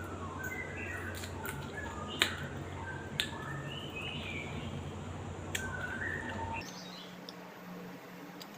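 Small birds chirping in short calls in the background, with a few sharp clicks and a low hum that stops about two-thirds of the way through.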